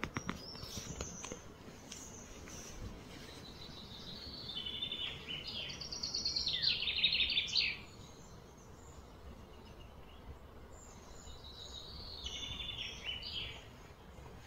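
Songbird singing: a long phrase of rapid, trilled high notes that grows louder and stops abruptly around the middle, then a shorter, quieter phrase near the end, over a low steady outdoor background. A few sharp clicks at the very start.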